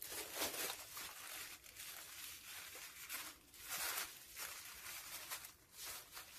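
Thin black plastic bag crinkling and rustling in faint, irregular bits as hands handle it and tie string around it.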